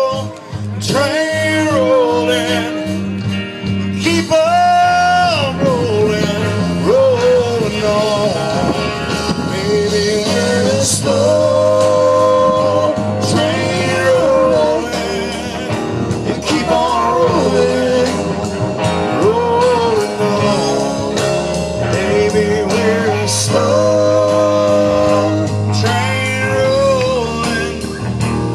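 Instrumental break in a blues-rock song: a lead instrument plays long melody notes that slide and bend, over the band's bass and drums.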